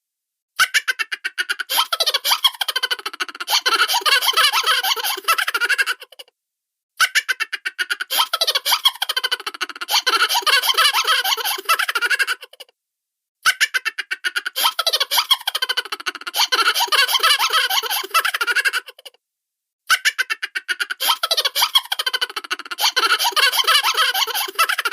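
Cartoon laughter sound effect: a high-pitched, rapid chuckling laugh about six seconds long, played four times over with short silent breaks between.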